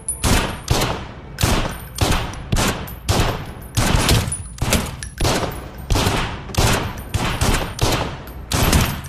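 Several pistols firing in quick, uneven succession, about two to three shots a second, each shot ringing on in an indoor shooting range. The shooting stops near the end.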